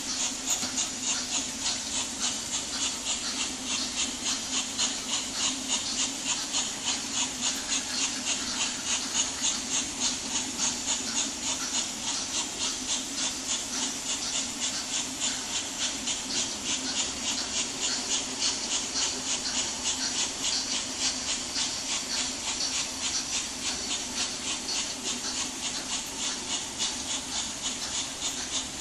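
Märklin H0 model freight wagons rolling past on metal track: a steady rattle with fast, even clicking, about three clicks a second, over a steady low hum.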